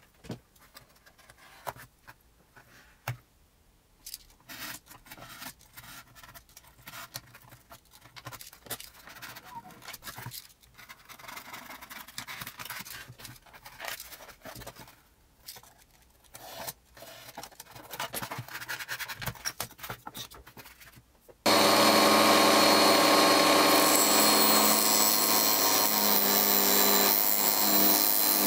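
Quiet scrapes and clicks of a utility knife cutting foamboard. About three-quarters of the way through, an electric scroll saw starts suddenly and runs loud and steady, cutting thin plywood.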